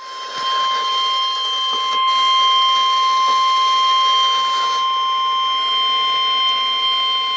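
Weather radio 1050 Hz warning alarm tone: one steady high-pitched beep held over radio static, the signal that a weather warning bulletin is about to be read.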